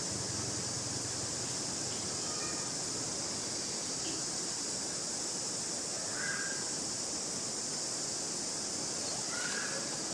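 Outdoor ambience: a steady high hiss with a few short, faint animal calls, two of them about six and nine and a half seconds in.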